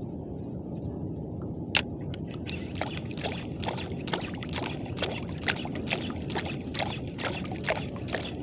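Steady low rumble of a boat at sea, with water sloshing. A sharp click comes about two seconds in, followed by a run of irregular short clicks and ticks.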